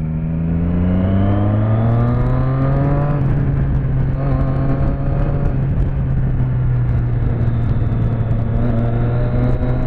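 Motorcycle engine pulling away, its pitch rising for about three seconds, dropping at a gear change, running steadily, then rising again near the end, with wind rush on the microphone.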